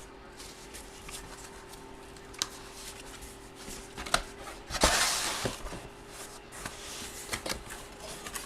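Handling noise as a large photo and its packaging are moved: a few sharp clicks and taps, and a brief plastic-like rustle about five seconds in, over a faint steady hum.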